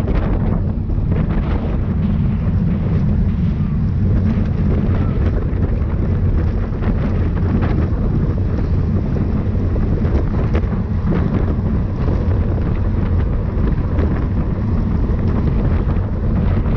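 Wind buffeting the microphone of a camera riding along in a bicycle race: a loud, steady low rumble.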